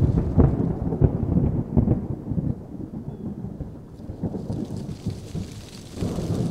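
Thunder rumbling, starting abruptly, dying down in the middle and building again near the end.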